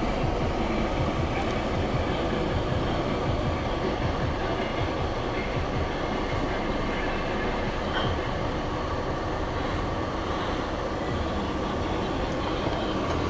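Steady rumble of a vehicle's engine and road noise, heard from inside the vehicle as it moves slowly through traffic.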